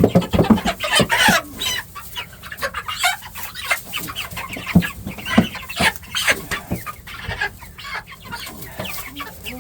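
A flock of young Cornish Cross meat chickens clucking and peeping close by, many short calls overlapping throughout.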